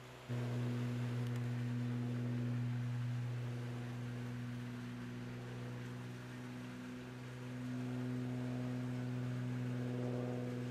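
A steady low hum with a fainter hiss above it, stepping up in level a fraction of a second in and then holding, with slight swells.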